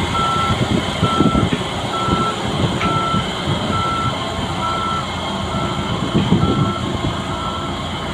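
Backup alarm beeping steadily about once every 0.8 seconds over the running engine and low rumble of a skid steer working a vibrating roller, as the machine reverses. The beeping stops shortly before the end.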